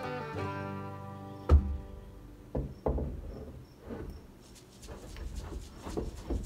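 Background string-band music fades out over the first second and a half. Then there is a sharp wooden knock as a reclaimed barn-wood box beam mantel is set onto its mounting cleat, followed by several lighter knocks as the beam is pushed and shifted into place.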